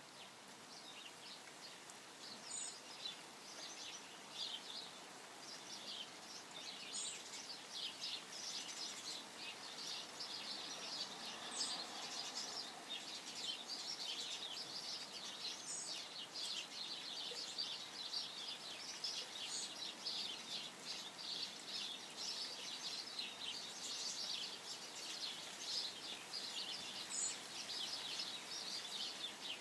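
European goldfinches chattering: a continuous, busy twittering of high, quick notes, over the steady hiss of light rain.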